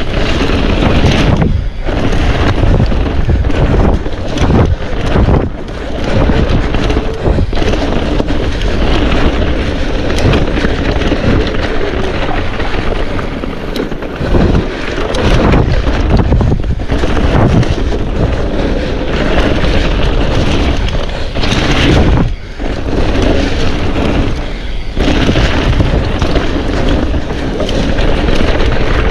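Wind buffeting the microphone at riding speed over the rattle and frequent knocks of a mountain bike running over rough trail.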